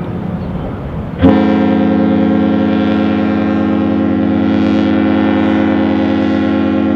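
Ship's horn sounding one long, steady, low blast that starts abruptly about a second in, after a moment of background rumble.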